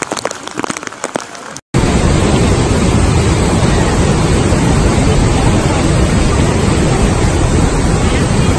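Floodwater rushing in a loud, steady roar as it pours through the arches of a stone-arched bridge or weir. It starts abruptly a little under two seconds in, after a moment of crackling from a different shot.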